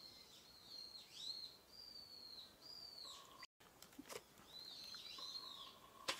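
A wild songbird singing faintly, a series of short whistled notes that dip down and swing back up, about two a second, broken by a brief gap in the middle. A sharp click near the end.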